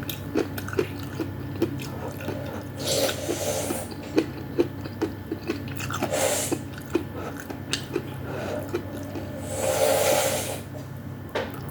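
Close-up chewing of vegetable soup and meatballs: soft, wet mouth clicks about two or three a second, broken three times by a longer hissy sound.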